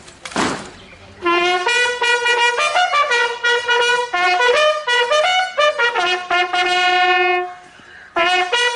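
Bugle call sounded by a police bugler for a guard of honour salute: a run of clear brass notes, one long held note, a short break, then the call starting again near the end.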